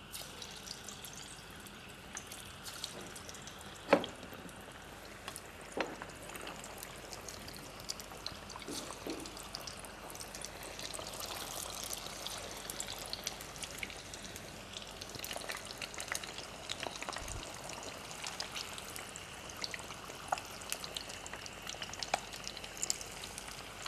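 Corn kebabs deep-frying in hot oil in a kadai: steady sizzling and crackling. A few sharp knocks stand out, the loudest about four seconds in.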